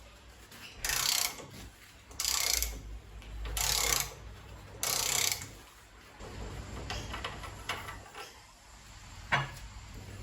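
Workshop hand tools working on a motorcycle's front fork: four short rasping, ratchet-like strokes about a second and a half apart, then lighter clicks and one sharp click near the end.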